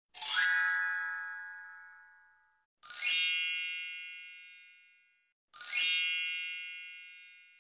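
A chime sound effect struck three times, each ding shimmering in and ringing out for about two seconds before fading away; the first ding is lower in pitch than the second and third.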